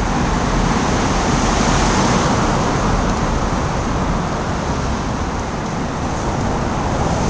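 Road traffic noise inside a road underpass: a steady rush of car tyres and engines, loudest in the first couple of seconds and then easing slightly.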